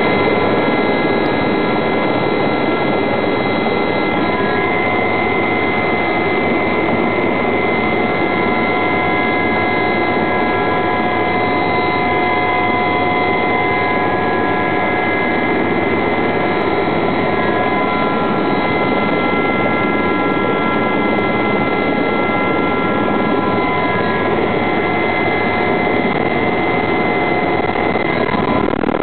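Aérospatiale Gazelle helicopter's turboshaft engine and rotors running, heard from inside the cabin: a steady, loud turbine whine with several held tones over a constant rush of rotor and airflow noise.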